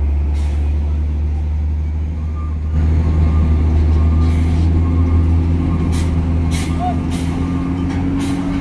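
Diesel engine of a Hino tractor unit hauling a tank-container trailer off a ferry ramp, running steadily under load; about three seconds in it gets louder and higher as the truck pulls onto the dock. A few short sharp noises come in the second half.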